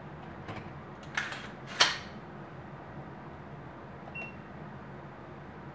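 A couple of small clicks, then a single sharp metallic snap as the AR-15's hammer falls when the trigger, fitted with reduced-power JP springs, breaks under a digital trigger pull gauge. About two seconds later the gauge gives a short electronic beep.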